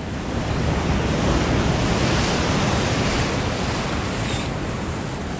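Ocean surf washing and breaking, with wind on the microphone; the wash swells about two seconds in and then eases off.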